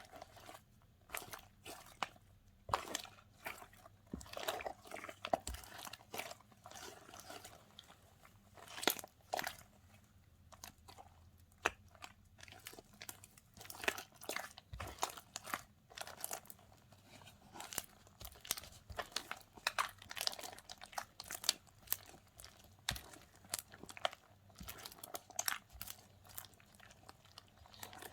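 Slime being squished, poked and stretched by hand, making many short sticky clicks and pops at an irregular pace, several a second.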